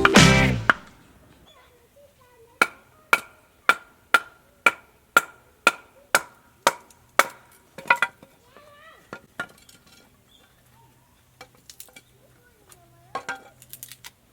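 Repeated metal-ringing strikes, about eleven blows at roughly two a second, then a few scattered lighter knocks.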